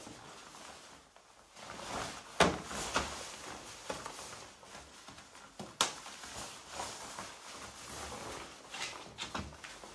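Rustling and shuffling of gear being handled, with two sharp knocks about two and a half and six seconds in.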